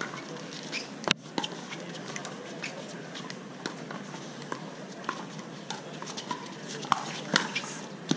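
Irregular sharp pops of pickleball paddles striking plastic balls, many overlapping from the busy venue, with one loud crack about a second in, over a steady murmur of voices.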